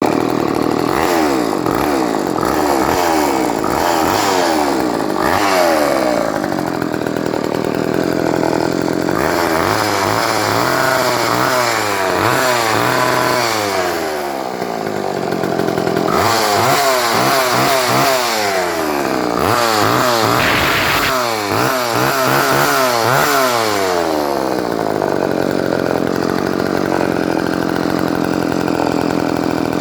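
Craftsman 358.355140 two-stroke chainsaw running with no chain fitted, revved up and down over and over with steadier running between the revs. The old saw is running again after a new fuel line and a full cleaning.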